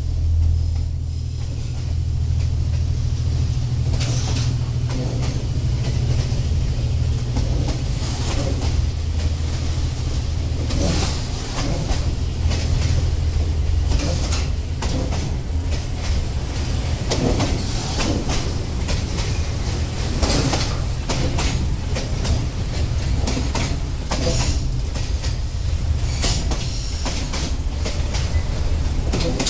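Container wagons of a narrow-gauge freight train rolling past: a steady low rumble broken by irregular clacks and knocks from the wheels on the track.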